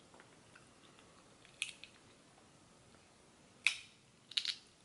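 Cooked crab shell cracking as it is pried apart by hand to get the meat out: three sharp cracks, the loudest about three and a half seconds in, with little else to hear between them.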